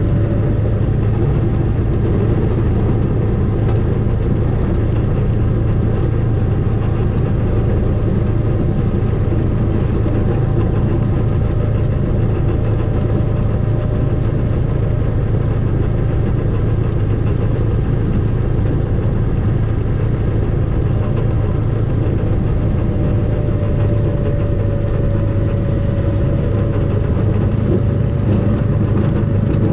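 Engine of a snow-ploughing vehicle running steadily: a constant low hum with a faint steady whine above it.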